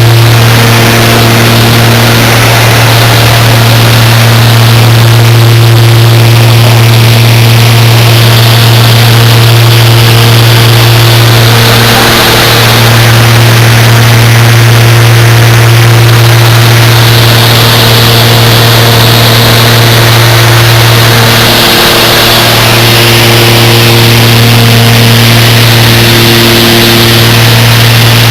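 Loud, steady engine drone: a strong low hum with fainter overtones over a rushing noise, holding steady without a break.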